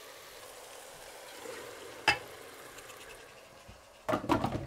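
Pot of onion-tomato masala sizzling faintly and steadily, with a single knock about two seconds in. Near the end a louder run of knocks and sizzling as the raw lamb liver pieces go into the pot.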